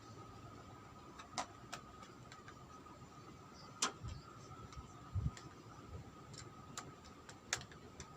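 Scattered light clicks and taps of an Acer Nitro 5 laptop being worked on by hand, with a couple of soft thumps in the middle, over a faint steady high tone.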